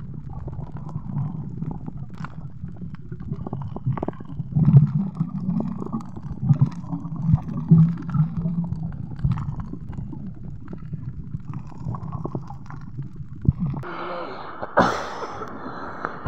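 Muffled underwater sound of the sea heard through a submerged camera: a steady low rumble with scattered clicks and knocks. About fourteen seconds in, the camera breaks the surface into splashing and open-air water noise.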